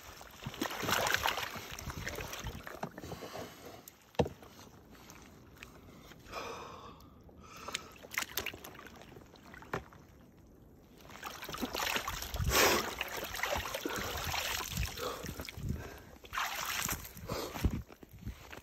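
Ice water and floating ice sloshing and splashing in an ice-bath tank as a person shifts about, ducks his head under and climbs out, with sharp breaths and gasps. The splashing is heaviest in the second half, where water streams and churns as he gets out.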